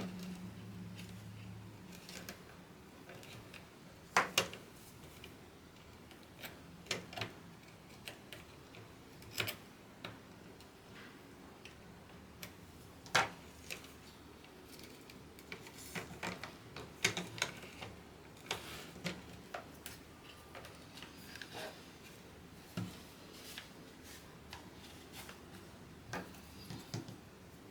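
Scattered small, sharp plastic clicks and taps, irregular and a second or more apart, from the parts of a small DIY split keyboard being handled and fitted. A low hum sounds in the first two seconds.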